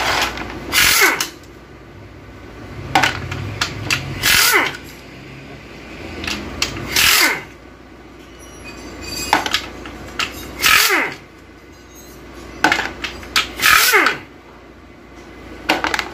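Pneumatic impact wrench loosening bolts on an automatic transmission case, fired in short bursts every few seconds. Each burst ends in a falling whine as the air motor spins down.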